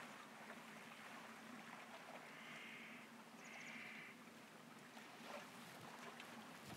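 Near silence: faint outdoor room tone by the water, with two faint brief sounds a little after two and three seconds in.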